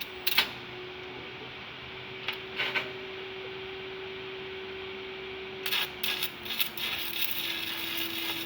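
Stick (shielded metal arc) welder over a steady machine hum: a few brief crackles as the coated electrode is scratched to strike the arc, which is slow to catch because the electrode is cold, then about six seconds in the arc catches and runs with a steady crackling sizzle.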